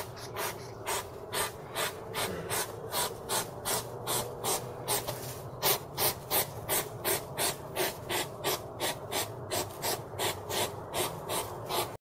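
Hedgehog sniffing and snuffling in quick, regular puffs of breath, about two to three a second.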